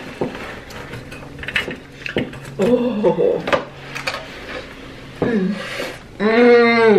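Metal chopsticks clicking and scraping against small metal bowls while noodles are eaten and slurped. A few short hums of a voice, with the longest and loudest one near the end.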